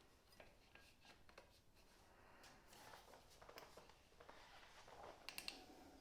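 Near silence, with faint scattered clicks and rustles of hand tools and small metal parts being handled, and a quick run of three clicks near the end.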